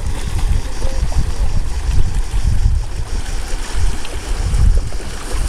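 Wind buffeting the microphone in uneven gusts, over the wash of small sea waves against a rocky shore.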